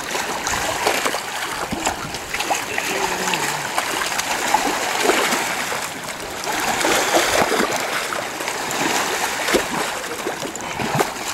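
Shallow river water splashing and sloshing continuously, with many small sharp splashes, as a paddlefish is held and handled in the shallows.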